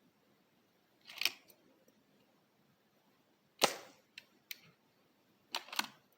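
.177 air rifle firing: one sharp crack about three and a half seconds in, the loudest sound, with a short tail. Shorter mechanical clacks and clicks come about a second in, just after the shot and near the end.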